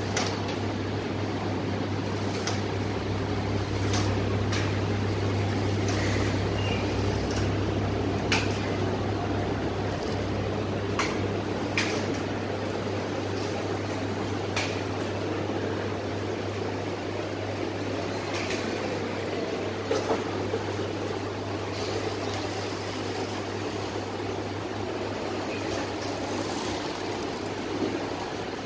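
Several JUKI industrial sewing machines running: a steady low motor hum with a busy mechanical whirr, broken by occasional short clicks.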